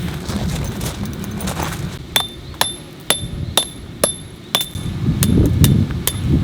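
A metal hammer drives a steel tent peg into gravel ground. There are about nine ringing, clinking strikes, roughly two a second, starting about two seconds in. Wind rumbles on the microphone underneath.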